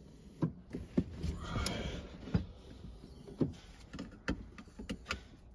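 Van seatbelt being pulled out of its retractor and fastened: a rustle of webbing and clothing, with a handful of short clicks and knocks from the buckle and fittings.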